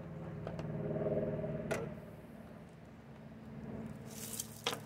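A socket and hand tools being handled: a few sharp metal clicks, the clearest about a second and a half in and just before the end, with a brief rustle near the end, over a low steady hum.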